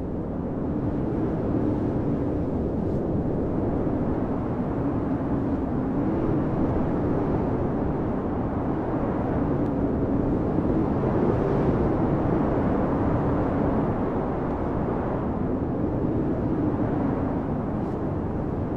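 Blizzard wind blowing steadily, heard muffled from inside a cabin: a low rushing noise with a droning howl that swells and eases in slow gusts, strongest about halfway through.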